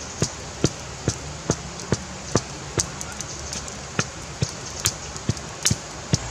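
Open wood fire burning hard under a clay pot, crackling with sharp pops about two a second over a steady hiss of flame.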